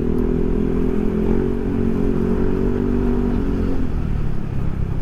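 Yamaha NMAX scooter's single-cylinder engine running through a Proliner SR Neo Silent aftermarket exhaust while riding, over a steady low rumble. The engine note climbs in pitch over the first second and a half, holds, then drops away near four seconds as the throttle eases.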